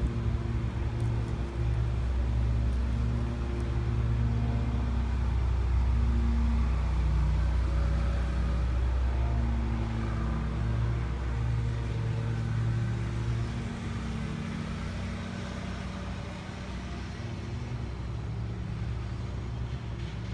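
Low motor rumble with a steady hum, swelling in the middle and easing off toward the end.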